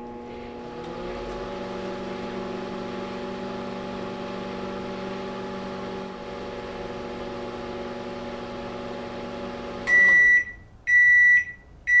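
LG countertop microwave oven running with a steady hum, which the owner takes for the transformer or magnetron working even though the water in it does not heat. The hum cuts off near the end, and three end-of-cycle beeps follow about a second apart.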